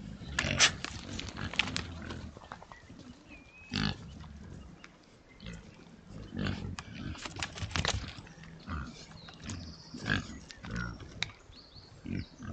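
A group of Oxford Sandy and Black pigs grunting, broken by several short, sharp squeals, the loudest about half a second in.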